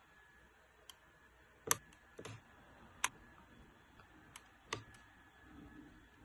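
A scattering of faint, sharp clicks and ticks as a small blade cuts and scrapes at the stiff plastic insulation of a thin wire. The loudest come about a second and a half and three seconds in.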